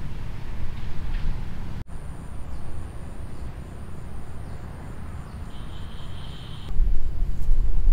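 Outdoor background rumble with a thin high steady tone. The tone holds for a few seconds and stops abruptly. The rumble then turns louder and gustier near the end.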